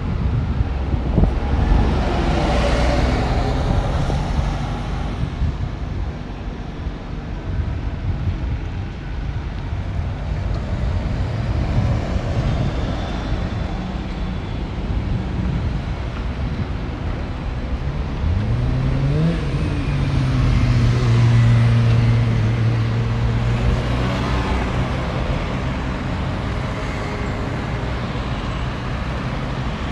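Road traffic passing close by: steady tyre and engine noise. About nineteen seconds in, one vehicle's engine revs up in pitch, then holds a steady drone for a few seconds.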